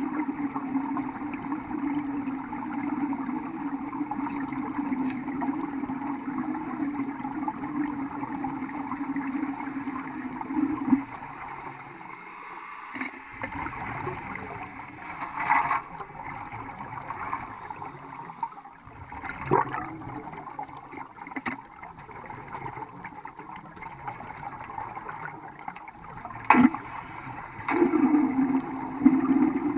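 Welding: a steady hum over a hissing noise that breaks off about eleven seconds in and starts again near the end, with a few sharp knocks in between.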